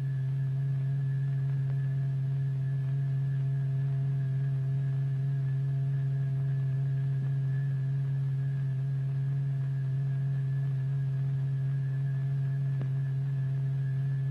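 A steady low electronic tone held at one pitch, with fainter higher overtones: the sine-wave drive of a vibration generator exciting a membrane in a cymatics experiment.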